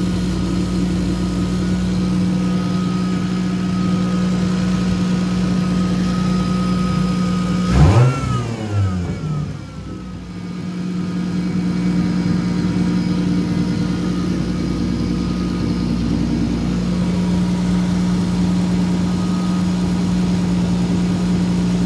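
Turbocharged Toyota 2JZ inline-six on a straight-pipe exhaust idling steadily at about 1200 RPM under a standalone ECU's idle control. About eight seconds in it blips up in revs and falls back, dips for a moment, then settles back to a steady idle.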